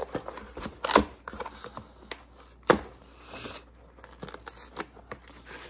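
Tight product packaging being worked open by hand: tearing and crinkling with a run of small clicks and two sharp snaps, about a second in and near the three-second mark.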